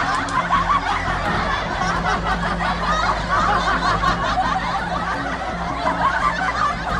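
Many voices laughing at once, a continuous overlapping laugh track, over background music.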